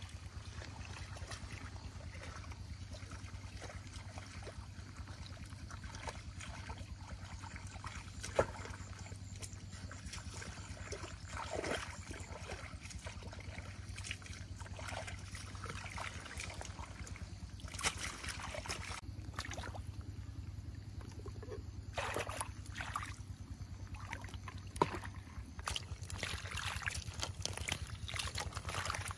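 Water sloshing and splashing now and then, with scattered short knocks, over a steady low hum.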